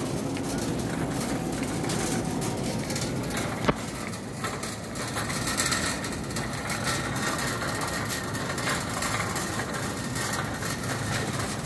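Shopping cart being pushed across a smooth store floor, its wheels rolling and wire basket rattling steadily, with one sharp knock a little under four seconds in.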